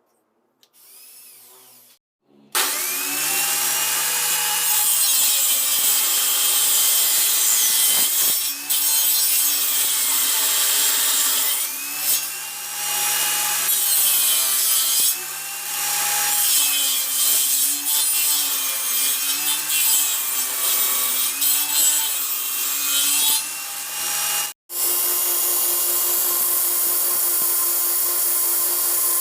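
Electric power tool cutting or grinding into the workpiece, its motor pitch dipping and recovering again and again as it is pressed into the material. Near the end it breaks off suddenly and then runs on at a steadier pitch.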